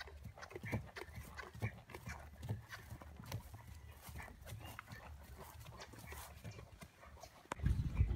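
Regular hoofbeats of a grey horse trotting on grass, with a short burst of low rumble near the end.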